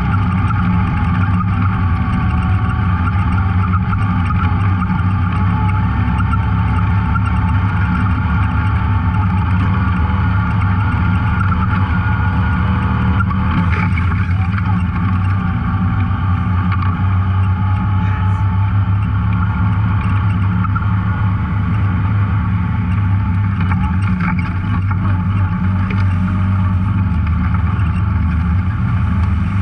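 Off-road vehicle engine running steadily, heard on board while riding a trail.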